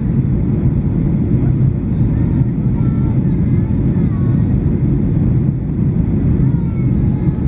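Steady, loud cabin rumble of a Boeing 737-800 on approach to landing, heard inside the cabin at a window seat by the wing, with the flaps extended. It is the CFM56-7B engines and the airflow over the fuselage.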